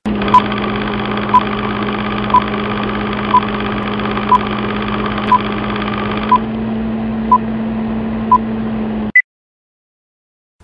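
Film-countdown sound effect: a steady film-projector whirr and hum with a short beep every second, nine in all, then one higher beep about nine seconds in before it cuts off suddenly.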